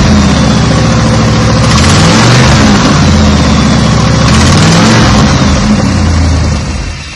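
Chevrolet Camaro engine and exhaust running loud close up, the engine speed rising and falling, with a harsh noisy edge that the owner suspects is an exhaust leak. The sound dies away near the end.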